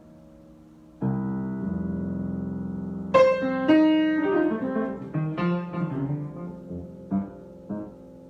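Improvised piano playing. A low chord is struck about a second in and held, then a flurry of brighter notes runs down and thins out, ending on a couple of separate notes near the end.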